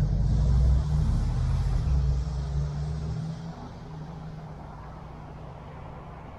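Motor vehicle engine running with a loud low rumble that eases off about three and a half seconds in, leaving quieter road noise from the moving car.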